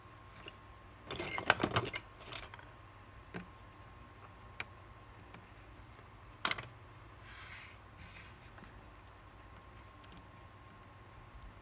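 Light clicks and taps of a small automatic watch movement and its metal holder being handled and fitted: a quick run of clicks about a second in, a few single ticks, then one sharp click midway followed by a soft rustle.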